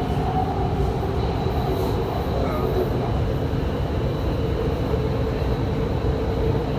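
Doha Metro train running: a steady low rumble with a faint, even whine held on top.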